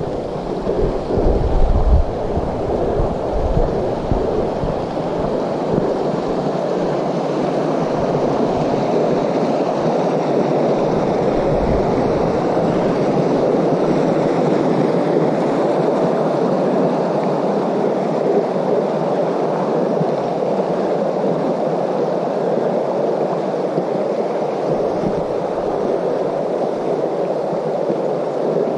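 Steady rush of a mountain creek running beside the trail. Low gusts of wind buffet the microphone in the first couple of seconds and again briefly around twelve seconds in.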